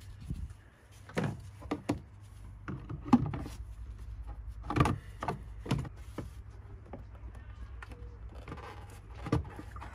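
Irregular plastic knocks and scrapes as a new paper air filter element is pressed and worked into the plastic airbox of a Ford Focus mk3.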